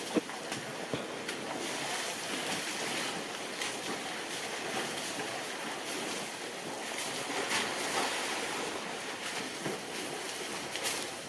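Elephant herd wading through a shallow muddy waterhole: a steady wash of splashing and sloshing water, with a few small splashes and knocks.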